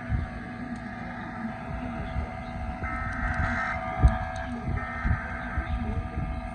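Emergency Alert System SAME header data bursts: two short, buzzy electronic screeches about two seconds apart, over a steady hum of tones and low rumbling.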